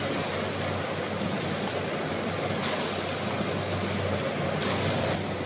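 Pork ribs and scallions sizzling in a wok over a portable canister gas burner, a steady hiss, with a couple of brief scrapes as the spatula stirs them.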